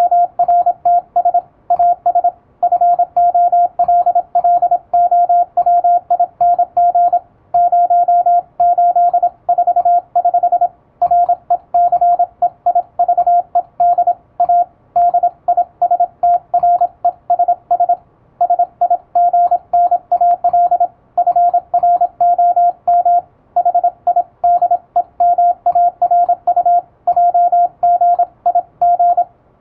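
Morse code sidetone from an electronic keyer: a single steady tone keyed into fast, even dots and dashes sending Latin-alphabet code, with short pauses between words every few seconds.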